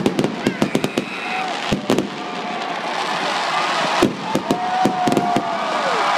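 Aerial fireworks going off in rapid crackling bangs, the sharpest bursts around four seconds in, over a crowd cheering; near the end one long held cheer falls away.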